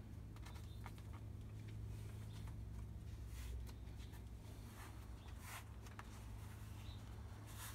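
Faint handling noise: scattered light clicks and rustles over a steady low hum.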